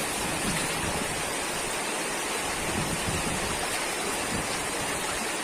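Steady rush of water, an even hiss with no breaks.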